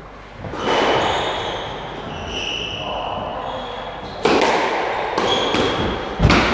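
Squash ball being hit: one sharp crack a little under a second in, then a rally from about four seconds in with four sharp hits of racket and ball off the walls within two seconds, ringing in the court. Short high squeaks of shoes on the wooden floor between the hits.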